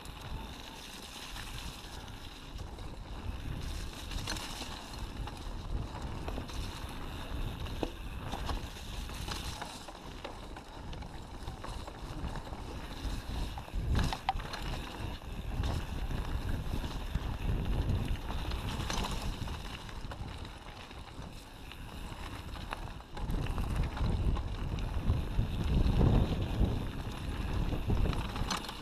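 Mountain bike rolling along a dirt forest singletrack: tyre rumble on the trail, with the bike clattering and knocking over roots and bumps and wind noise on the camera's microphone. It gets louder and rougher for the last several seconds.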